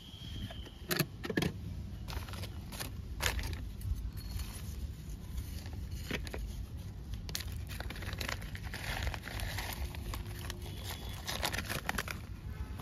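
Small metal hand trowel scraping and digging into loose potting soil, with scattered sharp scrapes and clicks against the pot, and a plastic packet crinkling near the end.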